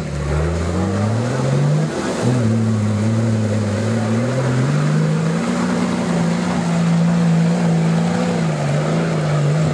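Nissan Patrol GR Y60 engine revving hard under load while the 4x4 climbs a steep muddy slope. The revs rise for about two seconds, drop suddenly, climb again and hold high, dipping briefly near the end.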